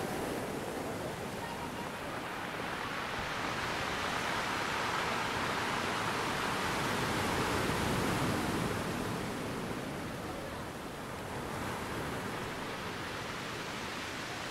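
Rushing noise like surf or running water, swelling slowly to its loudest midway and then easing off.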